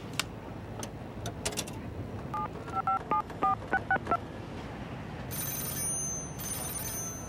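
Telephone being dialed: a quick run of touch-tone keypad beeps, then two bursts of a high ringing tone as the call rings through.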